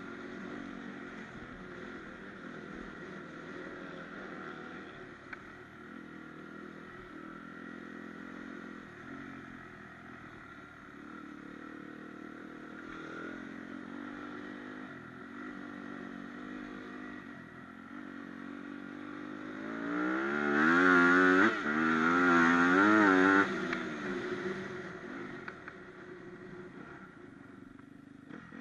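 Dirt bike engine running while being ridden, with a loud stretch of hard revving about two-thirds of the way through, its pitch wavering rapidly up and down for about three seconds before easing back to a lower, steadier note.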